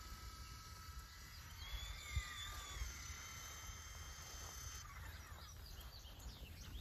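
Faint high whine of a small electric RC helicopter's motor, bending in pitch and cutting off about five seconds in, over low wind rumble on the microphone.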